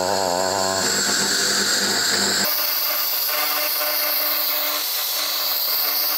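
Handheld laser welder-cleaner in cleaning mode, stripping paint off painted steel: a steady high-pitched hiss and whine as the paint is burnt off. About two and a half seconds in, the lower hum underneath drops away.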